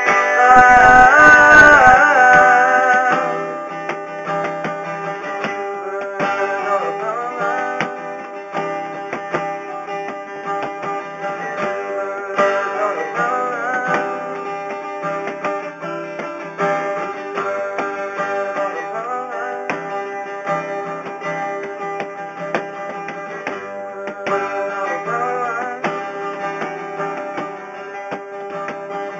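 Acoustic guitar playing a song, steady strumming and picked notes. Over the first three seconds a louder held, wavering pitched sound sits on top before dropping away.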